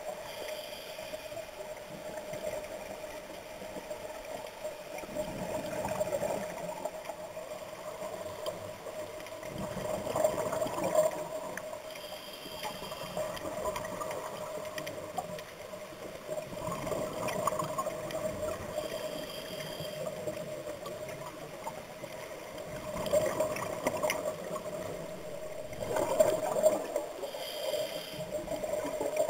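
A scuba diver breathing through a regulator underwater, the exhaled breaths bubbling and gurgling every few seconds, over a steady hum.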